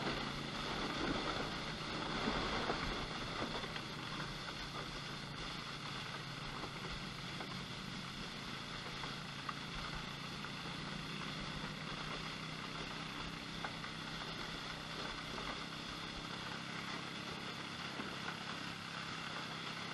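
Side-by-side utility vehicle engine running at a steady speed, a constant hum over a hiss of wind and ground noise.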